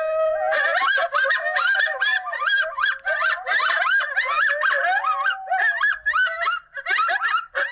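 A group of coyotes howling and yipping: a lower drawn-out howl under a steady, overlapping chatter of quick sliding high yips.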